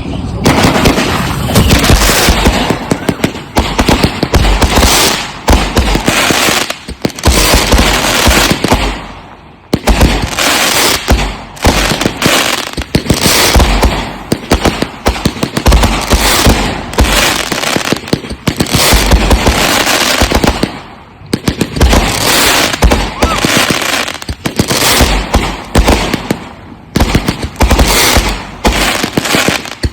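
Consumer aerial firework cakes firing one shot after another: a dense string of launches and bursting bangs that pauses briefly twice, about a third and about two-thirds of the way through.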